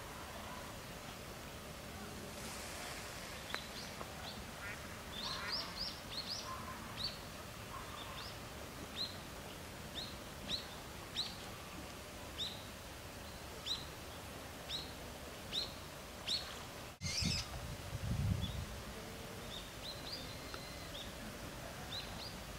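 A small bird chirping over and over, short high falling notes about once a second, against quiet outdoor background noise. About three-quarters of the way through the sound breaks off abruptly and a brief low rumble follows, then the chirps carry on more faintly.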